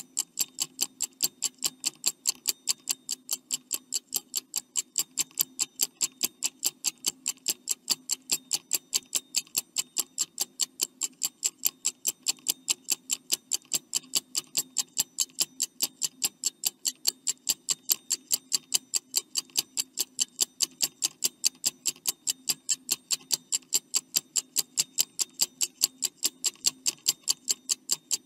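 Stopwatch ticking sound effect: fast, even clicks running as a countdown timer while a quiz question waits for an answer.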